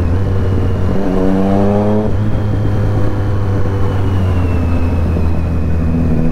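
Motorcycle engine pulling up through the revs about a second in, then running steady at cruising speed.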